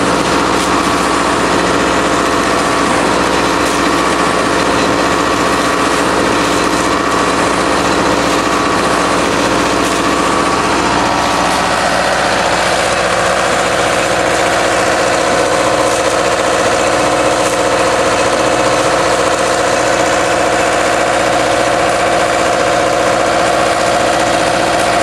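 Instaprime self-priming pump running steadily while its suction hose draws water and air from a shallow puddle at very low flow. About halfway through, the steady tone shifts to a new pitch.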